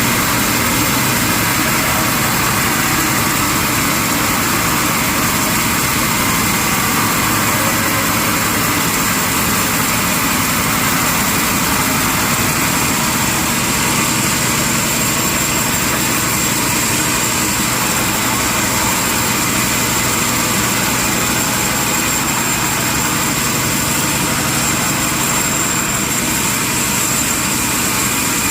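Sawmill machinery running steadily: a continuous mechanical drone with a faint high whine over it and no breaks.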